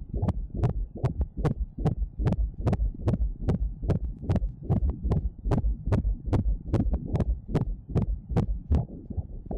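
Fetal heartbeat picked up by Doppler ultrasound: a rapid, even pulse of about two and a half beats a second (roughly 150 a minute, a typical fetal heart rate) over a steady low rumble.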